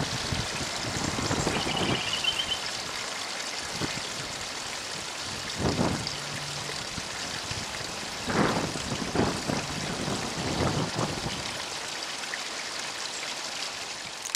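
Steady outdoor hiss with several short gusts of wind buffeting the microphone, and a brief bird trill about two seconds in.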